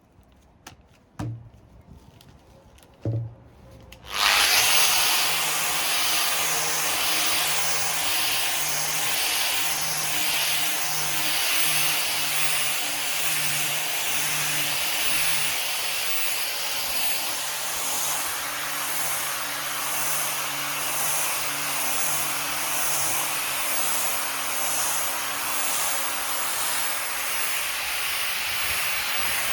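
An electric orbital sander starts about four seconds in, after a couple of knocks, and runs on a wooden table top. Its motor hums steadily under a loud sanding hiss that rises and falls evenly as the pad is worked across the wood.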